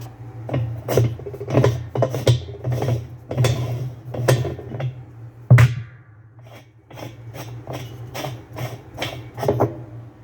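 A sledgehammer striking a spanner wrench set in the spanner nut under a top-load washer's tub, a string of sharp metal blows about one or two a second, with a short pause and the hardest blow just past halfway. The blows drive the stuck nut counterclockwise to break it free.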